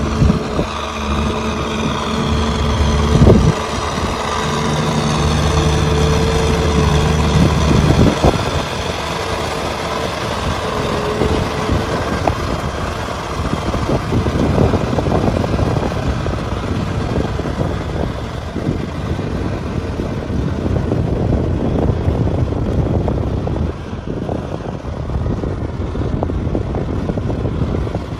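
Kubota M6040 SU tractor's diesel engine running steadily, with two sharp knocks about three and eight seconds in; after that the running sound turns rougher and noisier.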